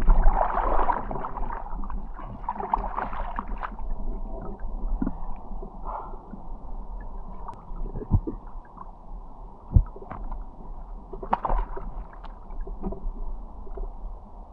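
Muffled water sounds from a camera in the water during a spearfishing dive: sloshing and gurgling, with louder surges near the start and about three-quarters in, and two sharp knocks in between.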